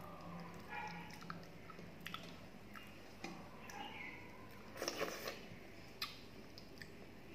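A person chewing a mouthful of rice, with soft wet mouth clicks. About five seconds in comes a louder wet squelch as fingers work through watery fermented rice (panta bhat) in a steel plate.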